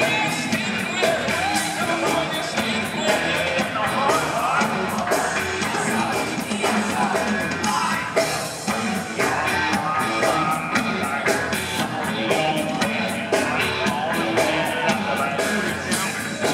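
Rock band playing live: electric bass and drum kit driving a steady beat, with a voice singing at times, heard as an audience recording in a concert hall.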